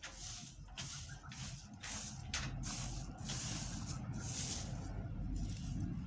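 Wheat grains rustling in repeated short swishes as they are spread and picked over by hand on a plastic sheet, over a steady low wind rumble on the microphone.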